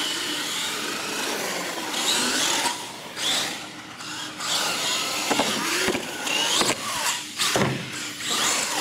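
Radio-controlled monster truck driving on a concrete floor: its motor and drivetrain whine, rising and falling with the throttle, over the scrub of tyres. A few short knocks come in the second half.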